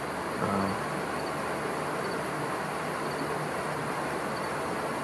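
Steady background hiss with faint, fast, high-pitched cricket chirping running through it: a night-time ambience.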